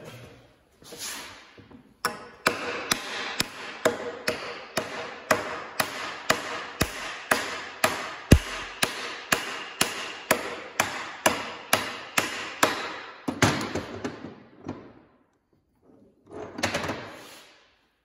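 Steady hammer blows on the end of a Hendey lathe spindle, pounding to drive the stuck shaft out of its headstock: a run of about two sharp metallic strikes a second, each with a short ring, lasting some eleven seconds.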